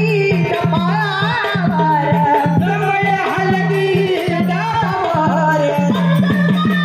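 Indian folk devotional music: a voice sings a winding melody over a steady tabla beat, its low drum strokes bending in pitch.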